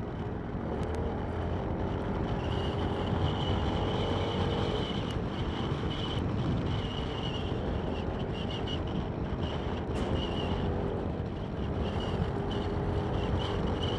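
Single-cylinder four-stroke scooter engine running at a steady cruise, with wind and road noise from riding.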